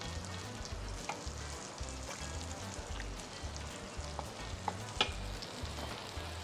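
White beech mushrooms sizzling as they fry in butter in a frying pan, browning before being turned. A few sharp clicks sound over the steady sizzle, the loudest about five seconds in.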